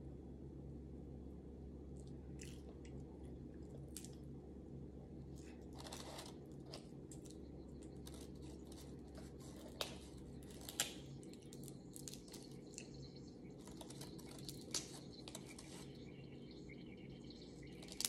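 Shells of boiled shellfish being peeled by hand: faint crackling and clicking, with two sharp snaps about ten and eleven seconds in, and some chewing, over a steady low hum. Near the end a faint high whine starts up, the refrigerator's ice maker.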